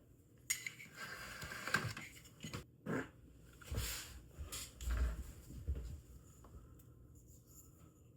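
Small model-kit parts being handled on a worktable: a run of light clicks, rustles and soft knocks, with the heaviest knocks about four to five seconds in, then only faint handling.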